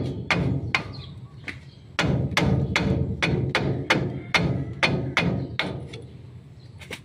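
Hammer striking a screwdriver held against the top of a truck's steering knuckle at the kingpin: a rapid series of sharp metal-on-metal taps, about two to three a second, growing weaker near the end.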